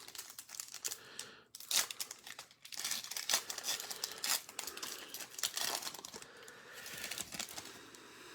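Sports trading card pack wrapper being torn open and crinkled by hand, an irregular run of crackling and rustling.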